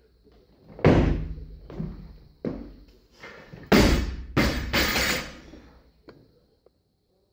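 Barbell loaded with rubber bumper plates: a heavy thud with rattling plates about a second in as the jerk is made, then the bar dropped to the floor, landing with a loud bang a little before four seconds in and bouncing twice more with rattling plates.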